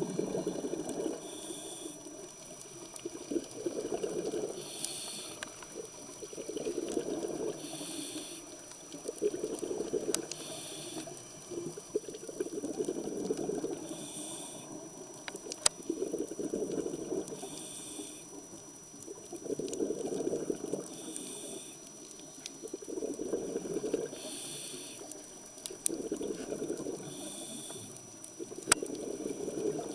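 Scuba diver's regulator breathing underwater: bubbling exhalations alternating with short hissing inhalations, about one breath every three seconds, with a faint steady high whine beneath.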